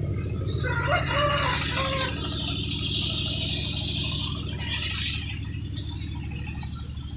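Small chainsaw engine running steadily at idle, its firing pulsing evenly, with a hiss over it for the first few seconds and a few short bird-like clucks about a second in.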